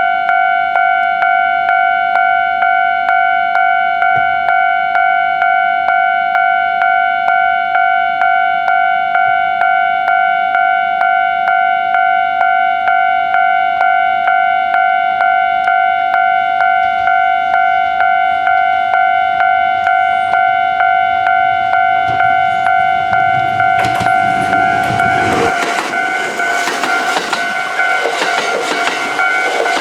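Japanese level-crossing warning bell ringing, the same electronic ding repeated fast and evenly. About 24 seconds in, a Kintetsu 2610 series train passes over the crossing with a loud rush of wheel and track noise while the bell keeps ringing.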